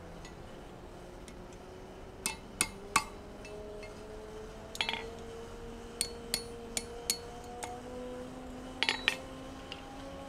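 Light hand-hammer taps on a bent 5/16-inch round-bar steel staple held in tongs on the anvil: about a dozen irregular metallic clinks, some in quick pairs, each with a short ring. The taps are bringing the staple's legs in to true its bend.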